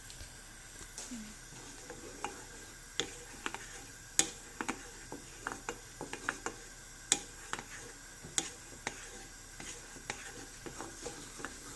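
A spoon stirring milk in a pan, tapping and scraping against the pan in short, irregular clicks, a few a second, as the milk is brought back to the boil.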